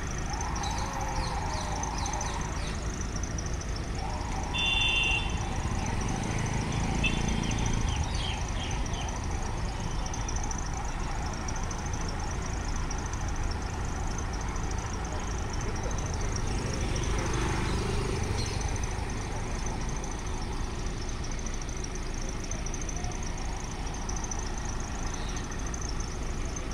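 Steady low rumble of vehicle engines standing by in the open, with a thin high tone throughout and a few short high-pitched beeps about four to five seconds in.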